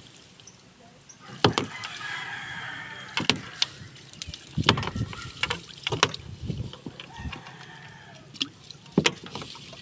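Sharp, irregular knocks and clatter as a fishing net is pulled and sorted over an outrigger boat's hull. A rooster crows faintly in the distance about two seconds in.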